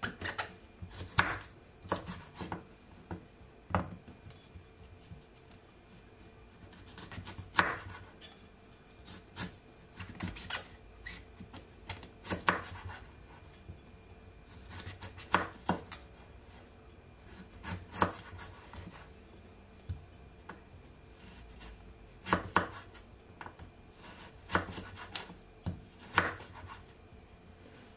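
Kitchen knife cutting a raw carrot into sticks on a wooden cutting board: irregular sharp knocks of the blade meeting the board, singly and in short runs, with pauses between cuts.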